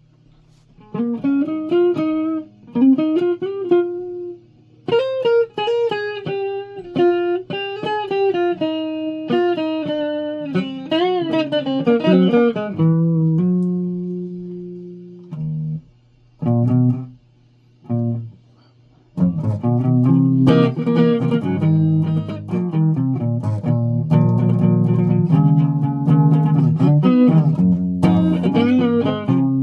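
Guitar played solo: single plucked notes with bent, wavering pitch for the first dozen seconds, a few sparse notes, then denser notes and chords from about two-thirds of the way in. A steady low hum sits underneath throughout.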